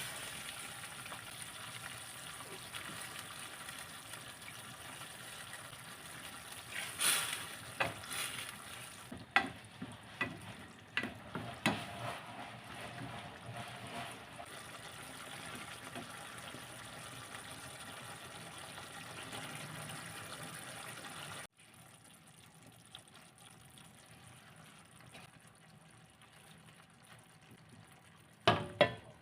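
Food frying in a pan with a steady sizzle, stirred with a utensil that clinks and scrapes several times about a third of the way in. The sizzle drops suddenly to a fainter level about two-thirds through, and there is a brief clatter near the end.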